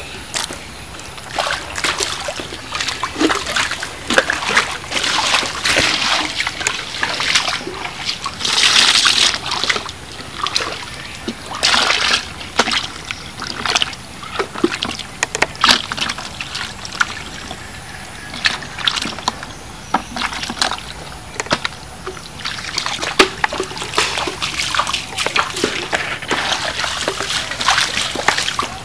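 Muddy water splashing and sloshing in irregular bursts as it is scooped from a hole with a cut-off plastic bottle and poured into a plastic bucket of live eels. The loudest splashes come about a third of the way in.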